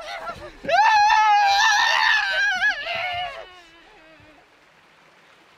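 A man's long, high-pitched scream, wavering in pitch, starting just under a second in and trailing off after about three seconds, leaving only faint outdoor background.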